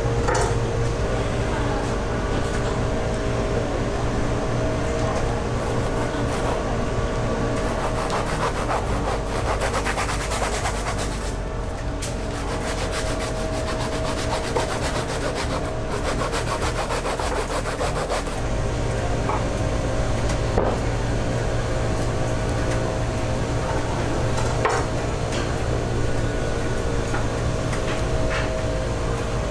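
A knife scraping and sawing along the skin of a whole large tuna, in quick rasping strokes, densest through the middle, over a steady low hum.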